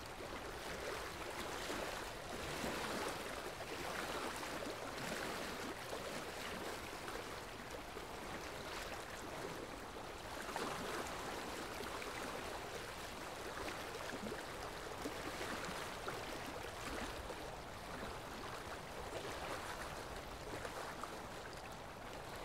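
Small waves of a calm sea washing onto a sandy beach: a steady, soft hiss of surf with slight swells.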